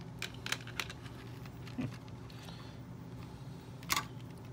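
Hard plastic toy-playset parts clicking and tapping against each other as a swing frame is worked onto a railing. There are a few light clicks in the first second and a louder click about four seconds in.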